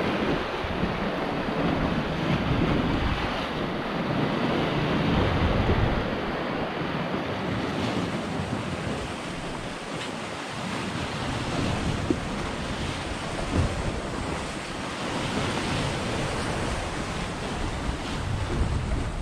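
Sea waves washing against shore rocks, the wash swelling and easing, with wind buffeting the microphone. Two brief clicks come about two-thirds of the way through.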